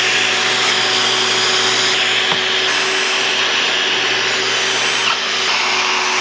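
Shop vacuum running steadily, hooked to the dust-collection port of a pocket-hole jig, with a sharp click about two seconds in.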